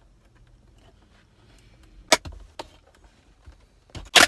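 Plastic trim cover being pried off a 2007 Acura MDX center console armrest: sharp snaps as its clips let go, one about two seconds in and a louder one near the end, with a few lighter clicks between.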